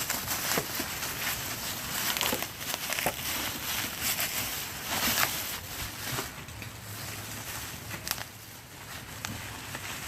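Rustling and crinkling of plastic wrapping and loose packing peanuts being handled, with scattered light knocks and clicks; the handling eases off in the second half.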